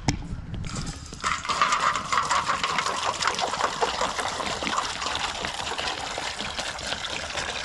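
A thump, then water pouring from a bottle into a dog's water bowl, a steady splashing stream that starts about half a second in and grows stronger about a second in.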